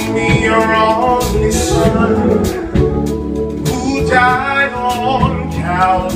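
Live gospel band performance: a male lead vocalist sings into a handheld microphone over band accompaniment, with steady held chords and regular drum hits.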